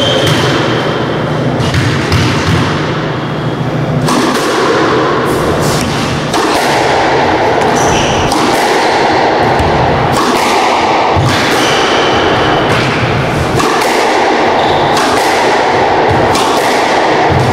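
Squash rally: the hard rubber ball struck by rackets and smacking off the court walls, sharp knocks coming about once a second with a short ring of room echo after each.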